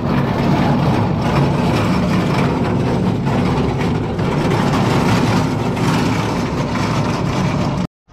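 Truck engine and road noise while driving, a steady low hum under a broad rush, cutting off abruptly near the end.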